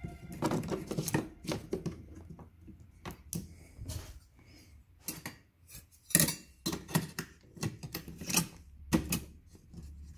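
Irregular light clicks, taps and knocks of a hand handling the circuit board and metal shield inside an opened flat-screen TV. They come in uneven clusters and are busier and louder in the second half.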